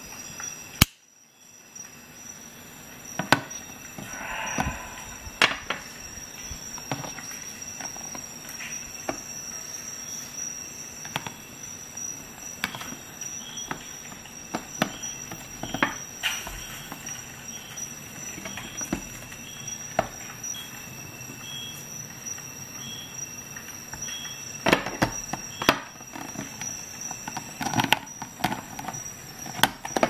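Leatherman Charge multi-tool's can opener being levered through the rim of a tin can: irregular sharp metal clicks and scrapes, coming thicker near the end.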